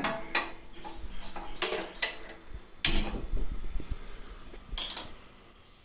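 An igniter clicked about five times at uneven intervals, the loudest click about three seconds in, in an attempt to light the fire. A low rumble runs underneath.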